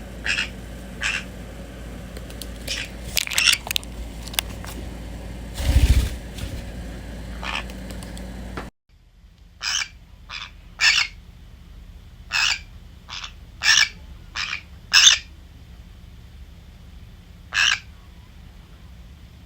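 Pet parrots (a white-bellied caique and a green-cheeked conure) giving a string of short, sharp calls, scattered singly and in pairs. There is a dull low thump about six seconds in.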